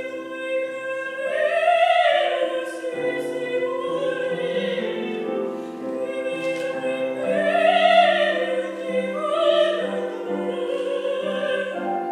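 Opera music: a singing voice holding long notes that swell twice, over sustained instrumental chords.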